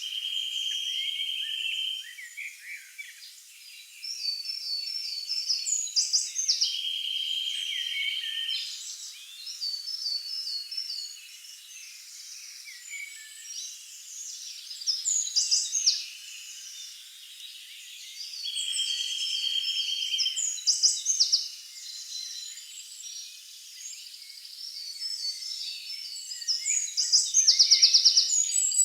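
Several Atlantic Forest birds singing at once. A steady trill of about two seconds recurs every several seconds, while higher, shorter slurred phrases overlap it, and a rapid, loud trill comes near the end.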